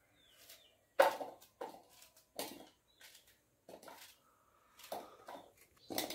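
Knife cutting chunks off a green brinjal held in the hand, a crisp cut about every half second to second, about seven in all, the loudest about a second in.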